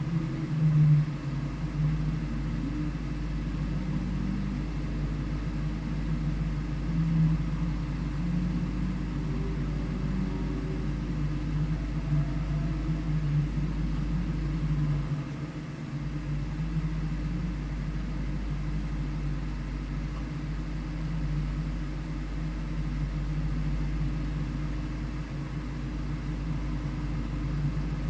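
A vehicle engine running at a steady, unchanging speed: a low drone with a deep rumble beneath it.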